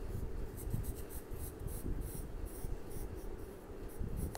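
Colour pencil scratching on paper in a run of short, irregular strokes as tulip leaf outlines are sketched.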